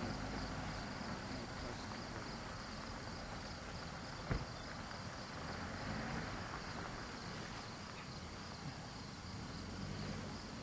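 Insects chirping in a steady pulsing drone, with one sharp click about four seconds in.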